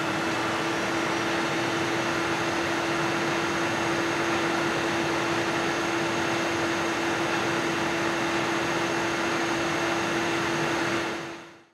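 Nidec Gentle Typhoon 120 mm PC fans on a CPU tower cooler running at full speed, about 2150 RPM: a steady rush of air with a steady hum tone over it. The sound fades out just before the end.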